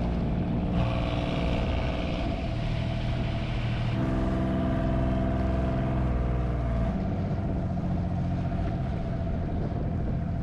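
Boat engine running steadily, its note changing about four seconds in and again near seven seconds.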